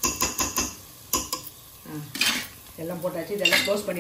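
Steel spoon clinking and scraping against a black pressure-cooker pan while stirring sautéed vegetables. There is a quick run of clinks at the start, more strikes about a second in, and a louder scrape-and-clink around two seconds in and again near the end.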